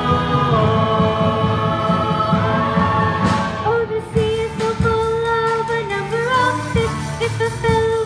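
Stage-musical music: the accompaniment plays a melody in long held notes that bend slightly in pitch over a busy lower part, with voices singing along.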